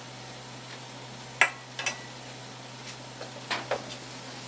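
A few sharp metallic clinks of a utensil against a metal pot: the loudest about one and a half seconds in, with a short ringing tail, another just after it, and two lighter ones a little past three seconds in. Under them is a steady low hum.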